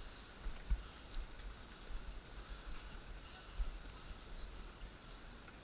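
A steady, high-pitched insect chorus, with irregular low thumps and rumbles on the microphone.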